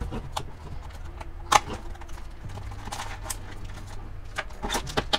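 Small cardboard blind box being opened by hand and the foil-wrapped vinyl figure pulled out: scattered taps, clicks and light rustles of cardboard and packaging, with a sharper click about a second and a half in.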